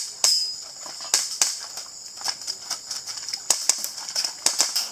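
Airsoft pistol shots: a string of sharp cracks, some in quick pairs, coming faster in a close cluster near the end.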